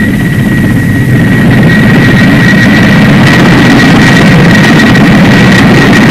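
Coaxial-rotor Kamov naval helicopter hovering, its turbine engines giving a steady high whine over a heavy rumble of engine and rotor noise, which grows louder about a second in.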